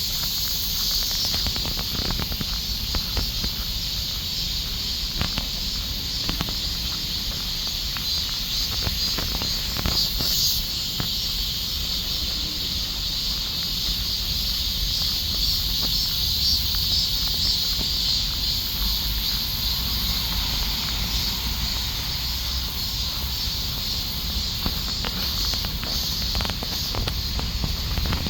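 A chorus of summer cicadas buzzing steadily, with a low rumble underneath.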